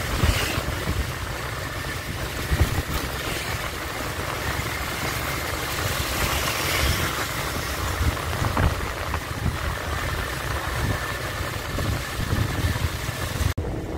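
Steady engine and traffic noise heard while riding along a city street, with wind rumbling on the microphone. The sound cuts out for a moment near the end.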